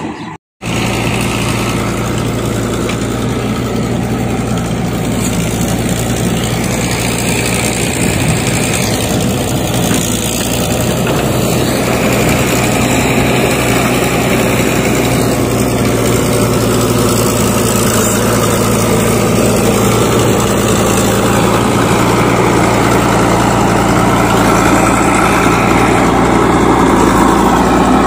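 Diesel engines of a Mahindra tractor and a JCB 3DX backhoe loader running steadily. The sound drops out completely for a moment about half a second in, then grows slowly louder toward the end.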